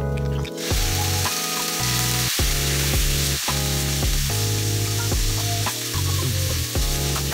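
Pork liver cubes sizzling in hot oil with ginger in a nonstick pan, stirred with a nylon spatula; the sizzle starts suddenly about half a second in as the liver hits the oil. Background music plays throughout.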